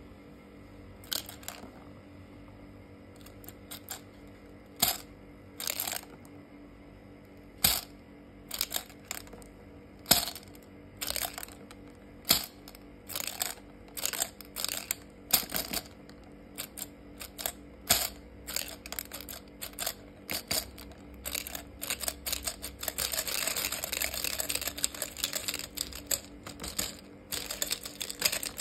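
Small plastic spiral gumball machine dispensing gumballs: hard candy balls clicking and rattling down the plastic spiral and dropping onto a woven mat. The clicks come one at a time and irregularly at first, then more often, with a dense run of rattling near the end.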